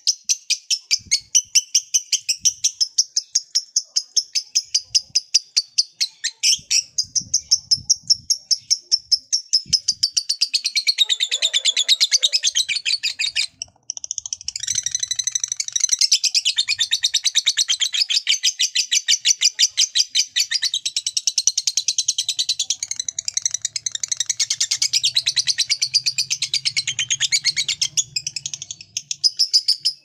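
Lovebird's long 'ngekek' chattering song, the long chatter that lovebird keepers prize. It starts as quick shrill chirps, about five a second, and after about ten seconds these run together into a continuous chatter. The chatter breaks off for a moment about halfway, then starts again and keeps going.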